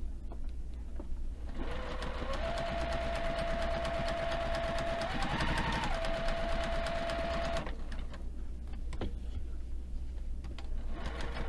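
Juki TL-2010Q single-needle lockstitch sewing machine running, basting with long stitches through a pinned quilt sandwich. Its motor whine rises as it speeds up, holds steady, goes briefly higher, then stops. It starts again near the end.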